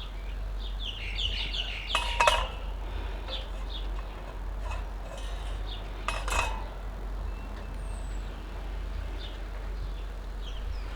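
Metal clinks and clatter as half of a Ridge Monkey pan is handled and set onto a small wood-fired camp stove, with two louder clatters about two and six seconds in. Small birds chirp faintly between them.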